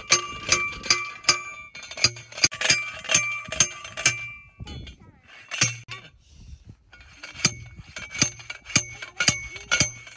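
Manual T-post driver pounding steel T-posts into the ground: ringing metal clangs, about three or four a second, in runs with a pause of a couple of seconds midway.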